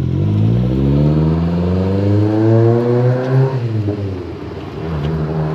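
Toyota AE86 Sprinter Trueno's four-cylinder engine, heard from inside the cabin, revving up steadily under acceleration, then dropping sharply about three and a half seconds in as it shifts up and settles into the next gear.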